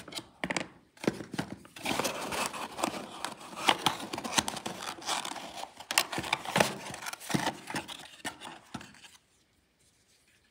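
Small cardboard boxes being opened and handled, rustling and scraping, with many sharp clicks from the plastic switch inserts and cover frames taken out of them.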